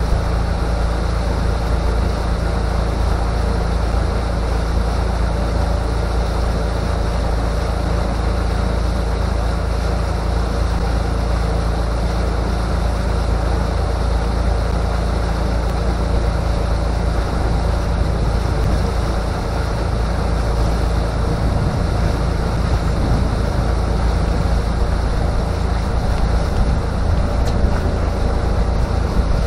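Pontoon boat under way: the steady drone of its outboard motor, mixed with wind buffeting the microphone and water rushing past the pontoons.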